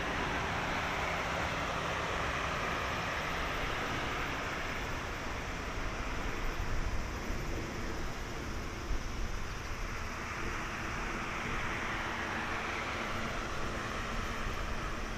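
Jet engines of an Airbus A330-300 airliner on final approach to land, a steady rushing noise whose hiss slowly drifts lower and then higher in pitch.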